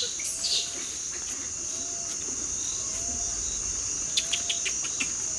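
Insects keeping up a steady high drone, with a short low bird call repeating about once a second and a few quick clicks about four seconds in.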